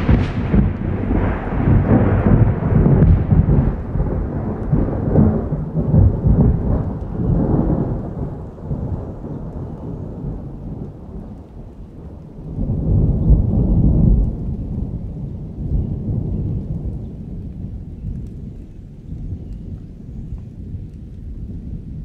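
Thunder rumbling over steady rain: a long, loud peal that slowly dies away over about ten seconds, then a second, shorter rumble swells up past the middle and fades back to the rain.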